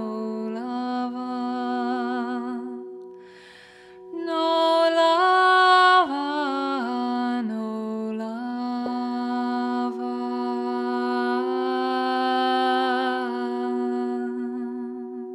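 A woman's wordless singing in long held notes with vibrato, over the steady ringing tone of a crystal singing bowl. The voice drops away briefly about three seconds in, then comes back louder.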